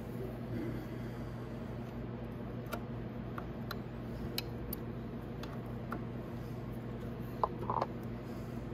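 Faint, scattered metal ticks of a No. 5 Allen key turning and seating in the brake caliper bolts, over a steady low hum. A sharper pair of metal clinks comes near the end.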